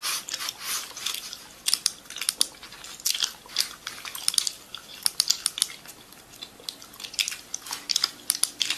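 Irregular crisp crunching and clicking, several sharp crackles a second.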